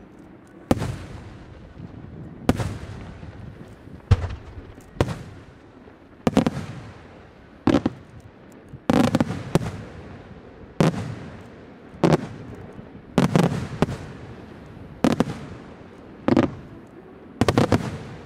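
Aerial firework shells bursting in a steady sequence: about a dozen sharp bangs, roughly one every second or so, some in quick pairs, each followed by a rolling echo.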